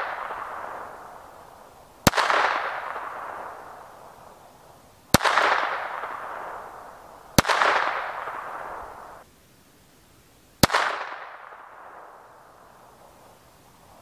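Four single shots from a Beretta 21A Bobcat .22 LR semi-automatic pistol, spaced two to three seconds apart. Each sharp crack is followed by a long echo that fades over about two seconds.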